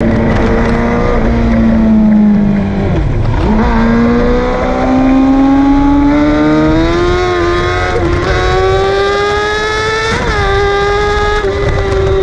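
Tuned 2018 Yamaha R6 inline-four engine at high revs under way, heard from on the bike with wind rush on the microphone. The engine note dips briefly about three seconds in, then climbs steadily for several seconds as the bike accelerates, and holds level near the end.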